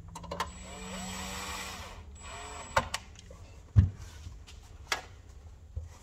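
Cordless drill/driver running briefly twice, driving the NVR's case screws: one run of about a second and a half, then a shorter one. Clicks of metal parts follow, with one sharp knock past the middle as the steel case is handled.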